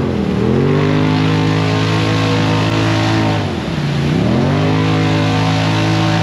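Lifted side-by-side UTV engine held at high revs as its tyres spin and churn through deep, sticky mud. About halfway through, the revs drop briefly and then climb straight back up.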